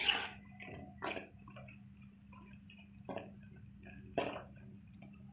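Potato pakoras sizzling and bubbling in hot ghee in a karahi, with a metal spoon scraping and knocking against the pan four times as they are turned.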